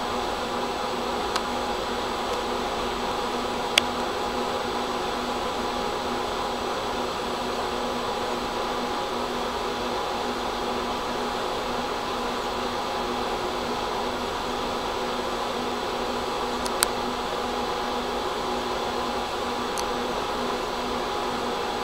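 Steady hum of a stationary tram's onboard equipment, heard inside the cab, with a few steady tones over a noise haze. Sharp clicks sound about 4 seconds in and again near the end, with a fainter one just before.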